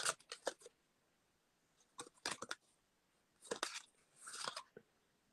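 Quiet clicking and rustling handling noise in four short clusters, the last a softer rustle lasting about half a second.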